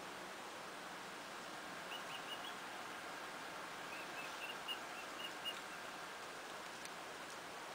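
Steady background hiss, with two runs of faint, short high chirps: a few about two seconds in, and a quick series of six or so between four and five and a half seconds in.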